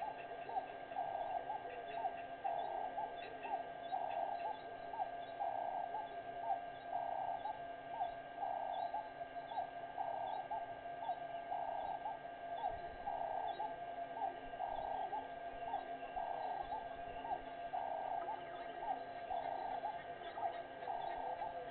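A chorus of repeated animal calls in an even rhythm, about one every two-thirds of a second, with fainter gliding notes underneath, over a constant steady hum.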